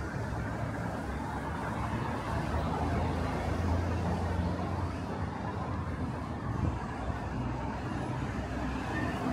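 Steady traffic on a busy city main road, with a low engine rumble from a passing vehicle growing louder a few seconds in and fading again.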